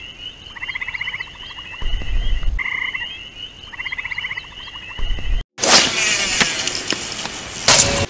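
A chorus of frogs trilling in short pulsed bursts over a steady high chirring. About five and a half seconds in it cuts off suddenly and gives way to a loud, steady rushing noise.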